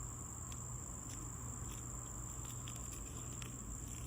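Steady high-pitched insect trill, with a few faint scattered ticks.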